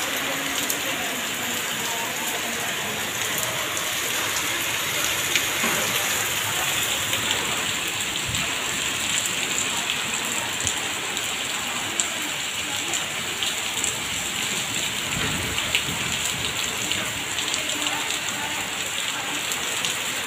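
Heavy rain pouring down, a steady hiss with scattered sharp drop hits, mixed with water gushing from a drainpipe into a flooded drain.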